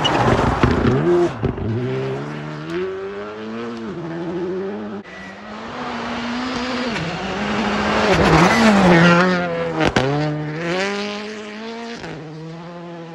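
Škoda Fabia Rally2 rally cars at full throttle on a snow stage. The first car's engine revs away through its gears at the start. A second car then approaches, its engine rising through gear changes and peaking as it passes about eight to nine seconds in, with a sharp crack near ten seconds, before it fades into the distance.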